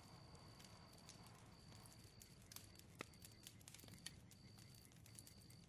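Faint crackling of a bonfire: scattered soft pops and snaps over a low hiss, the sharpest pop about three seconds in.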